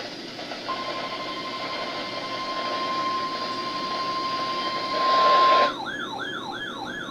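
NOAA Weather Radio alert tone: a steady single tone near 1 kHz, the warning alarm tone that announces a warning broadcast, held for about five seconds over radio hiss. Near the end a burst of noise cuts it off and a repeating falling electronic warble takes over.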